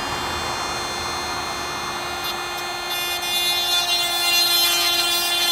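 Oregon 12V chainsaw sharpener's small grinding motor running with a steady whine; from about three seconds in the grinding wheel bites into a chainsaw cutter tooth, adding a harsh, hissing grind over the whine.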